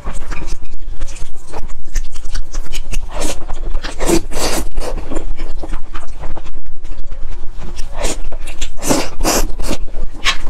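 Close-miked wet chewing and slurping of saucy stir-fried noodles, with a few longer, louder slurps about four and nine seconds in.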